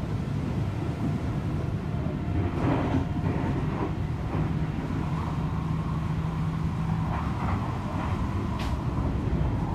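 Seibu 40000-series electric train heard from inside the passenger car while running: a steady rumble of wheels and traction equipment, with one short sharp click about nine seconds in.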